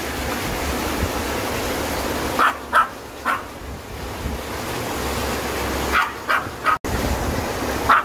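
A Maltese barking in short yips, three in quick succession about two and a half seconds in and several more near the end, over the steady rush of a shallow stream.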